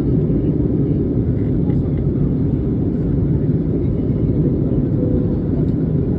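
Airplane cabin noise: a steady low rumble of engines and airflow heard from inside the aircraft.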